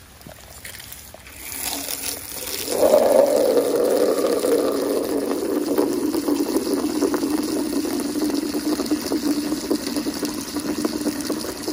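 Water jetting from a pistol-grip garden hose spray nozzle into a part-filled plastic bucket, splashing as the bucket fills. It builds up about two seconds in and then runs steadily.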